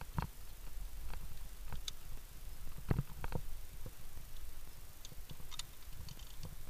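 Via ferrata climbing gear clicking and knocking: about a dozen scattered light clicks, irregularly spaced, from carabiners and hands on the iron rungs, over a steady low rumble.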